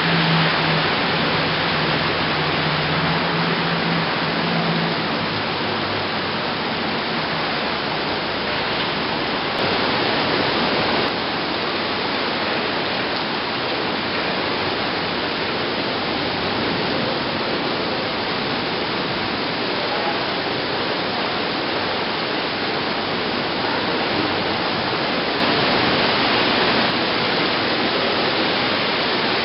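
Heavy rain from a supercell thunderstorm pouring down in a steady, dense wash of noise, briefly louder about ten seconds in and again near the end. A low steady hum fades out in the first few seconds.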